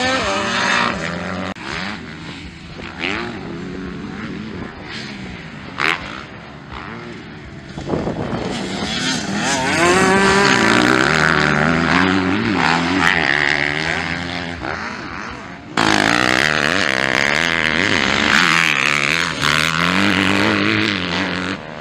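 Motocross dirt bike engines revving hard and backing off, the pitch climbing and dropping as riders work the throttle over jumps and through corners. The sound changes abruptly, getting louder about eight seconds in and again about sixteen seconds in, as one bike gives way to another.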